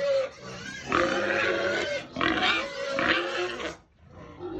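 Pigs squealing at feeding time in long, loud, high-pitched calls, one after another. The calls break off suddenly near the end.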